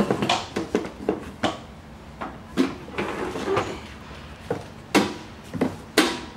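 Handling noise from unpacking a mini MIG welder: irregular knocks, taps and rustles as the machine is moved on a metal bench and its cables are lifted out of a cardboard box, with two sharper knocks about five and six seconds in.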